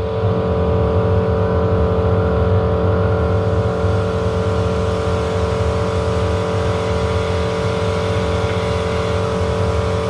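A machine running steadily at a constant speed: a steady mid-pitched hum over a low rumble.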